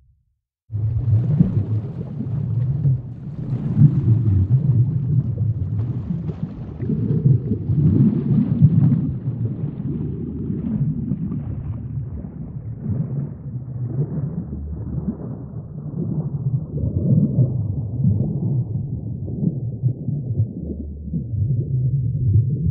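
A deep, low rumble that swells and eases every second or two, like surging water. It starts after a brief moment of silence at the very beginning.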